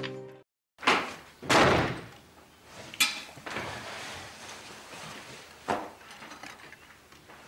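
A few sudden knocks and thuds, the loudest two close together about a second in, then single knocks at about three and six seconds, with faint rustling between them.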